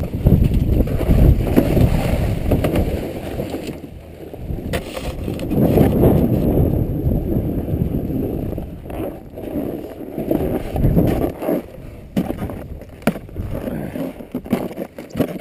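Snowboard sliding over snow off a chairlift unload ramp, heard as uneven low scraping noise mixed with wind buffeting the helmet camera's microphone. Near the end, a few sharp clicks as the rider works a binding strap.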